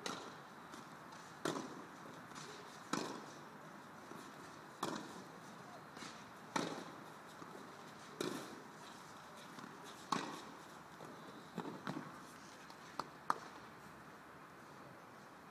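Tennis rally on a clay court: a ball struck back and forth by rackets about every one and a half to two seconds, each hit sharp with a short ring after it, and two quick cracks close together near the end.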